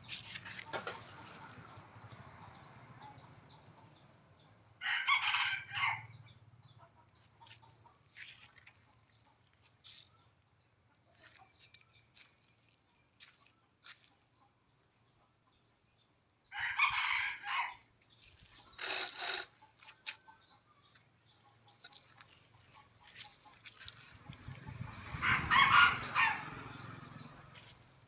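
Rooster crowing about four times, the loudest crow near the end, with chickens clucking between the crows.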